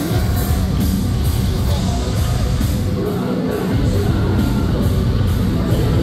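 Metalcore band playing live at full volume: distorted guitars, bass and drums, with cymbal hits keeping a steady beat of about three to four a second. A singer's voice rides over the band.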